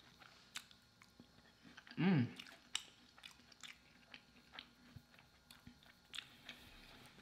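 A person chewing a mouthful of soft chicken pot pie lasagna close to the microphone, with small wet mouth clicks throughout. A short voiced hum comes about two seconds in.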